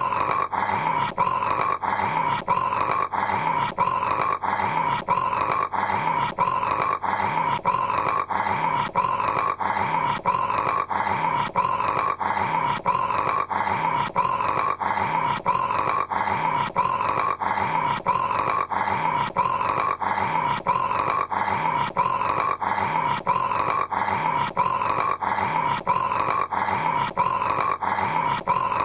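A man snoring, a rasping snore repeating in a steady even rhythm, with small regular clicks running through it.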